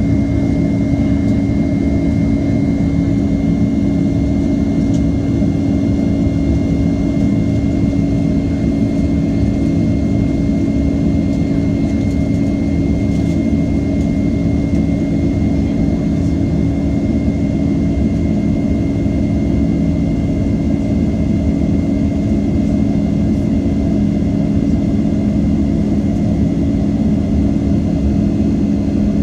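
Boeing 767-300ER's turbofan engines running at climb power, heard from inside the cabin: a steady, unbroken low drone with a thin steady whine above it.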